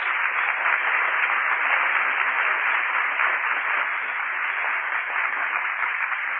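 Studio audience applauding steadily, heard through the thin, narrow sound of a 1930s radio recording.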